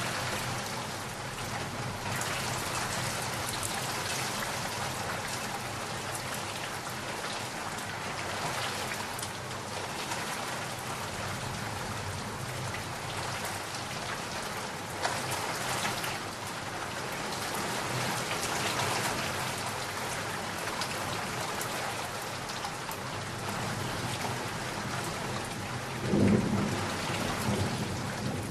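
Steady rain falling, with thunder: a short crack about halfway through and a louder, sharp thunderclap with a low rumble near the end.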